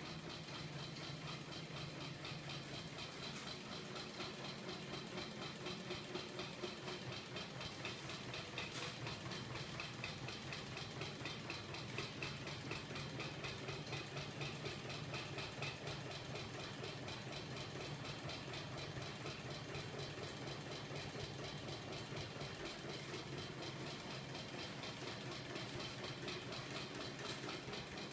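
Homemade magnet-motor contraption running: a fast, even mechanical clatter over a steady low hum.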